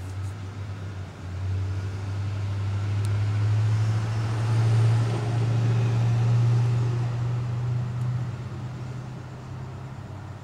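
A motor vehicle's low engine hum that swells over a few seconds and then fades, like a vehicle going by.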